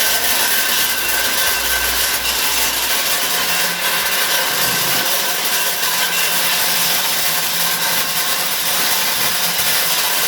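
Candlenut-cracking machine running, a loud, steady, dense clatter of nuts and shells being cracked.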